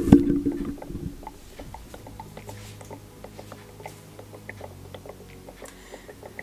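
Ink bottle upended in a Brother T520W printer's ink tank, the ink draining in with faint, irregular little clicks and gurgles while the tank fills. Music plays loudly in the first second and cuts off.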